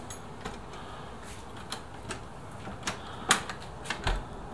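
A key being turned in the newly fitted lock of a metal entry door: a series of light, irregular mechanical clicks as the lock works through its turns, the loudest a little over three seconds in, with a low thud just after four seconds.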